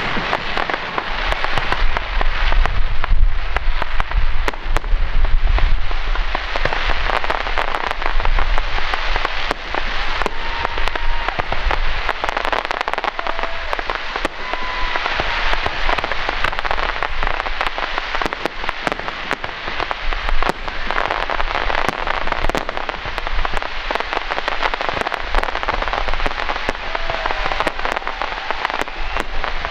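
Aerial fireworks display: a dense, continuous crackling of crackle stars over a loud hiss of bursting effects. Deep booms and rumble from shell bursts come through in roughly the first ten seconds.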